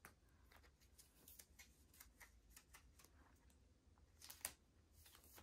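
Faint rustling and small clicks of photocards being slid into the pockets of a clear plastic binder sleeve page, a little louder about four seconds in.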